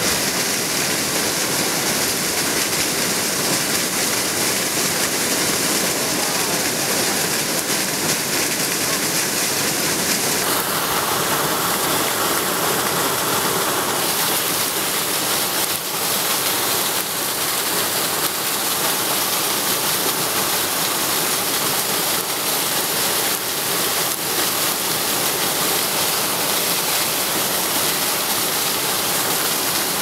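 A large waterfall cascading down a limestone cliff in several steps: a steady, loud rush of falling water and spray. Its tone shifts a little about ten seconds in.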